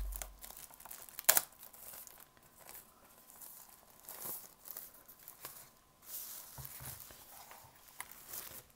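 A thin protective plastic bag crinkling and rustling in fits as a router is slid out of it, with one sharp snap about a second in.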